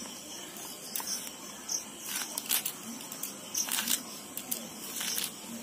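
Kitchen knife cutting into a hand-held piece of pineapple to dig out the eyes: short, irregular cutting strokes, several in a row.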